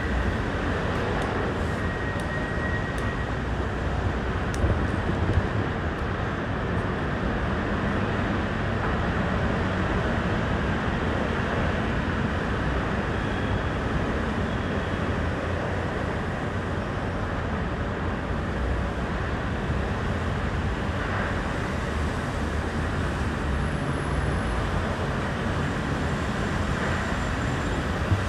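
Steady vehicle noise: an even wash of sound, heaviest in the low range, with a couple of brief knocks about five seconds in.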